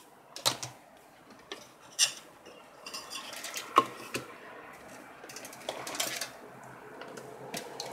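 Hard objects being handled and set down: scattered clicks and light knocks, the sharpest about half a second, two seconds and just under four seconds in.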